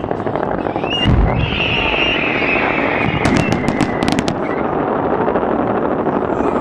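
A volley of 1-pound and 3-pound strobe fireworks rockets fires off. There is a dense rushing hiss of rocket motors with a high whistling tone, a low thump about a second in, and a quick run of sharp pops between about three and four seconds in.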